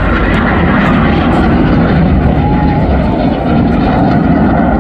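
Red Arrows BAE Hawk T1 jets flying a display, their Adour turbofan engines making a loud, steady jet noise overhead.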